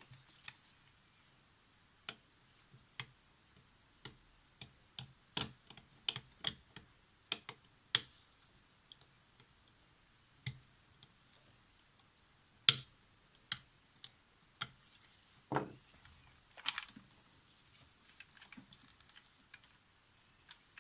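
Small metal hand tools clicking and tapping irregularly against a Polaroid SX-70's circuit board and parts during close work on a capacitor's insulation-coated legs. Sharp single ticks come a second or so apart, with a louder click about twelve seconds in and a short ringing tap soon after.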